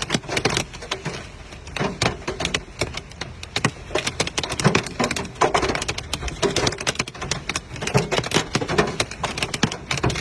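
Hailstones striking a hard surface, a dense, irregular clatter of sharp clicks and knocks.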